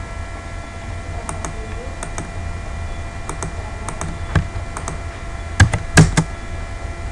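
Computer mouse clicking, several clicks in quick pairs, then a few louder keyboard keystrokes near the end as a command is typed. A steady electrical hum sits underneath.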